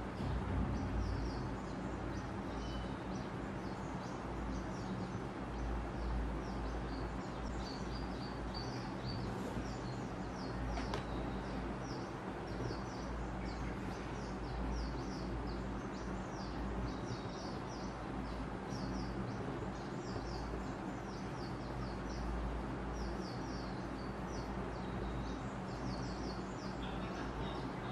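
Steady background hum with small birds chirping repeatedly, in short high-pitched bursts every second or so.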